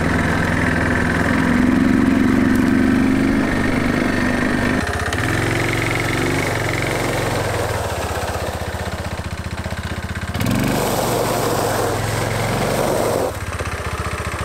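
Chinese Bashan 250 quad's engine running while the quad is ridden, its note and level shifting abruptly a few times.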